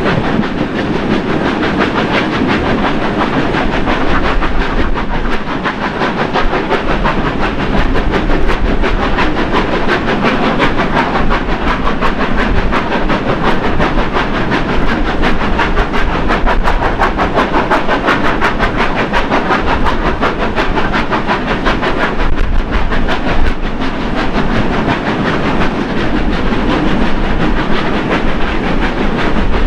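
A steam-hauled train in motion, heard from a carriage window: the steady, loud rumble and clatter of wheels on rail, with fast, even rhythmic beats running through it.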